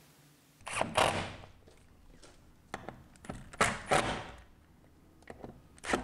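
Handling knocks and thuds at a door and its hinge, with rustling, in three short clusters: about a second in, around three to four seconds in, and at the very end.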